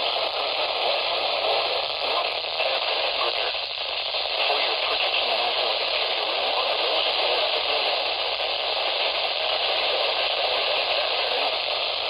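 Steady static hiss from a weather radio receiver, with no voice coming through: the sign of a weak or lost signal.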